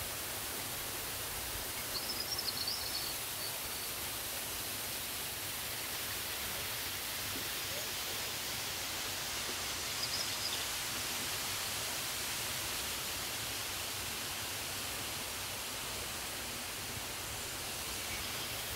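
Steady rushing of a waterfall, with brief high bird chirps about two seconds in and again around ten seconds in.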